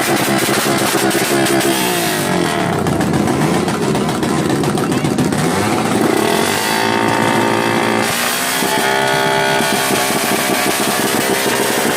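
Suzuki Raider R150 motorcycle's single-cylinder engine being revved: held at high revs, then dropping and climbing back several times in the middle, before holding steady again near the end.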